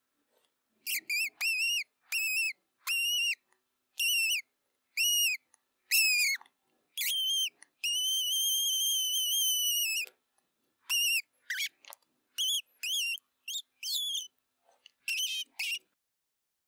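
Mouse squeaking: a string of short, high squeaks, each rising and falling quickly, with one long held squeak of about two seconds in the middle.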